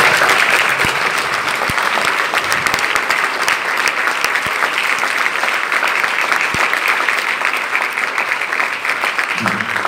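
Audience applauding: steady, dense clapping from a full hall.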